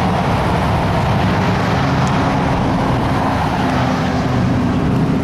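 A motor vehicle engine running steadily amid street traffic noise, a loud even rumble with a low hum that wavers slightly in pitch.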